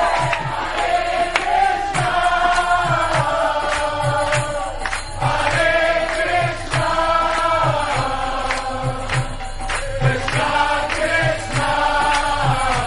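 Kirtan music: a group of voices singing a devotional chant in chorus over a steady low drum beat and sharp percussion strokes.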